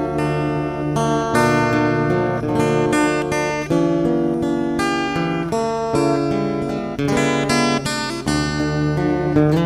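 Background music: acoustic guitar playing, plucked notes and strummed chords changing about every second.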